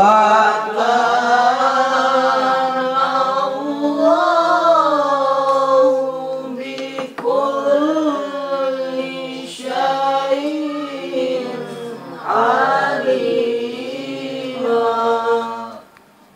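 Quran recitation chanted in a melodic style by a male voice: long held notes with ornamented turns, in several phrases with short breaths between them, stopping shortly before the end.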